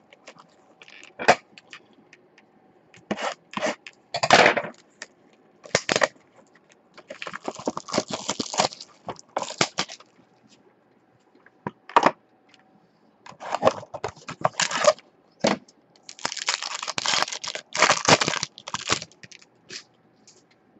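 Plastic shrink wrap crinkling and tearing in irregular bursts as a sealed box of trading-card packs is unwrapped, with scattered sharp clicks and taps from the card boxes being handled.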